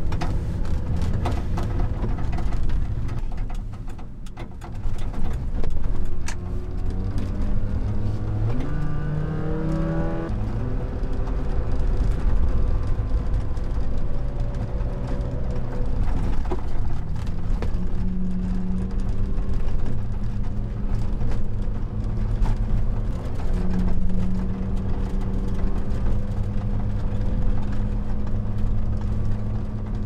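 Subaru Sambar kei truck's engine and road noise heard from inside the cab while driving. The engine note rises as it accelerates about eight to ten seconds in, then drops back at a gear change and runs steady, with scattered knocks and rattles from the road.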